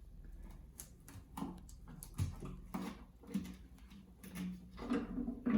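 Scattered light metallic clicks and scrapes as the oil pan is worked loose and lifted off the Lincoln 4.6L DOHC V8 block, with a few short low vocal sounds between them.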